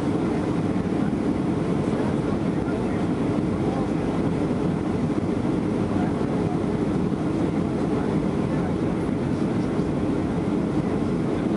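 Steady low roar inside the cabin of a Boeing 737-800 on final approach: its CFM56 turbofan engines and the airflow over the airframe, heard from a window seat over the wing, holding even throughout.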